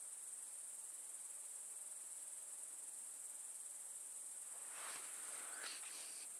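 Steady high-pitched chorus of crickets, with a brief soft rustle about five seconds in.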